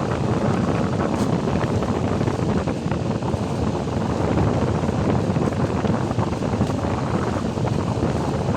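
Steady low rumbling noise of wind buffeting the microphone, with no clear tone or separate knocks.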